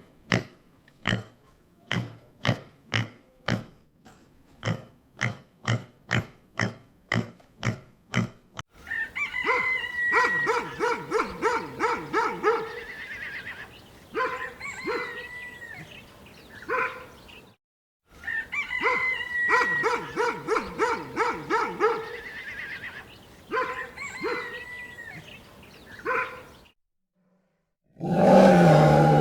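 A pig grunting in a steady run of short grunts, about two a second. After about nine seconds it gives way to a denser stretch of mixed animal calls that plays twice over, and a different loud call comes near the end.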